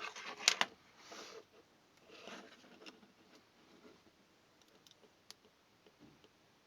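Plastic casing of a small battery-powered door and window alarm being handled and pried open: short scrapes and rustles with a sharp click about half a second in, another scraping patch a couple of seconds in, then a few faint clicks.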